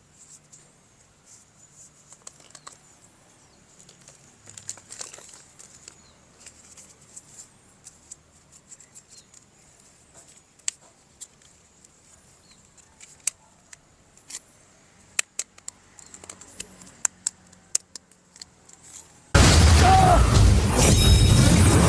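Small crinkles and a scatter of sharp plastic clicks from handling toy packaging and parts, sparse at first and more frequent in the second half. About 19 s in, loud music with heavy booms cuts in abruptly.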